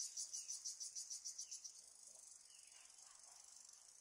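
Faint high-pitched insect chirping, a cricket-like trill pulsing several times a second, then merging into a steadier buzz about two seconds in.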